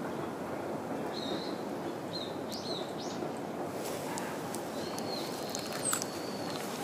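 Small songbirds calling outdoors: a few short, high chirps, then a longer held whistle and a quick falling note near the end, over a steady low background noise.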